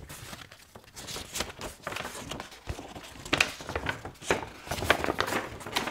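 A folded paper poster being unfolded by hand, rustling and crinkling irregularly with sharp crackles as its creases open.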